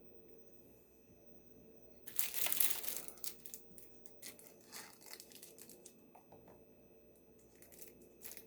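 A burst of crinkling, tearing noise about two seconds in, lasting about a second, then scattered lighter crackles and clicks as crinkly material is handled.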